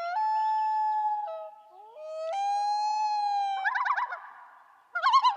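A wailing call: two long held notes, each sliding up at its start, then a quick wavering trill about three and a half seconds in and again near the end.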